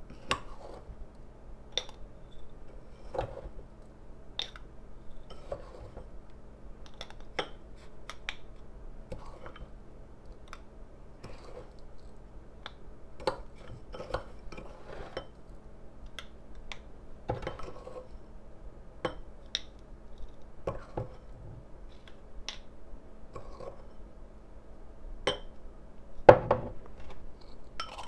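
Metal spoon scraping and clinking against a glass bowl while scooping coarse bath salt into a small glass jar, in scattered short clinks and scrapes. A louder knock comes near the end.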